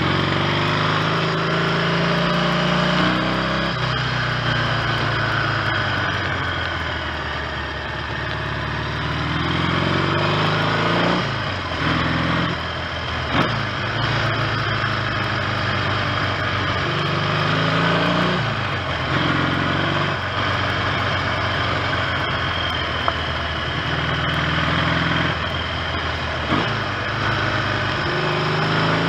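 1970 Triumph T100C's 500 cc parallel-twin engine running under way on the road. Its note climbs and drops several times as the bike accelerates, changes gear and eases off.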